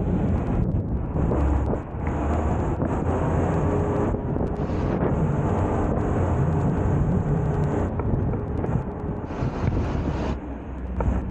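Engine of a converted fire truck running as it drives, a steady low rumble with wind noise on the microphone.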